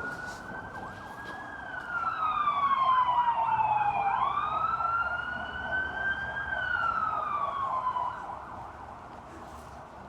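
Emergency vehicle siren sounding: a slow wail rising and falling in pitch, joined about two seconds in by a fast pulsing warble that is loudest through the middle and fades out near the end.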